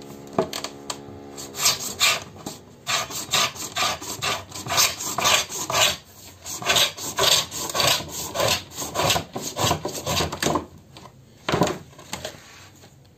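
Steel pins of a wooden marking gauge scraping along a sunmica laminate sheet in a quick run of back-and-forth strokes, scoring it so the strip can be cut away. The strokes stop near the end, with one last stroke after a short pause.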